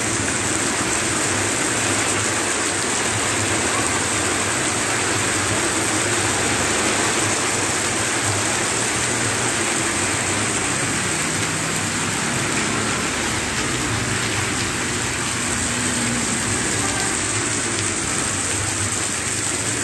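Heavy rain and running water: a loud, steady hiss.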